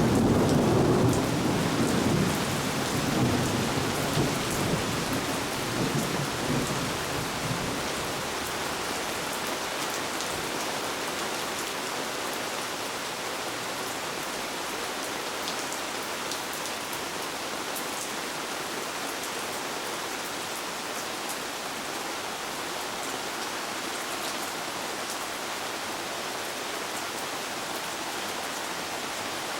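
Steady rain falling, with a deep rumble of thunder at the start that dies away over the first several seconds, leaving just the even hiss of the rain.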